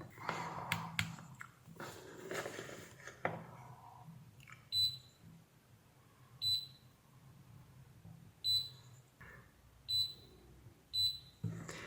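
Multimeter continuity beeper giving five short high-pitched beeps, one to two seconds apart, as the probes touch the board, after some clicking and rustling of probe handling. The beeps show continuity: a short circuit on the DC rail caused by the damaged PFC MOSFET.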